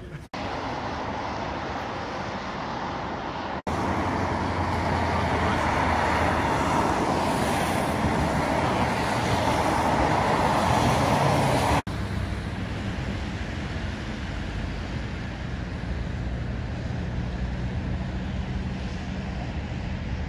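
Steady road traffic noise from passing cars on city streets. It cuts sharply into separate stretches about a third of a second in, near four seconds and near twelve seconds, and the middle stretch is the loudest.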